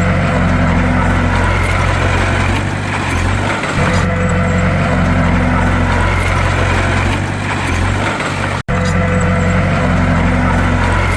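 Bulldozer's diesel engine running with a steady low drone. The sound cuts out for an instant about three-quarters of the way through.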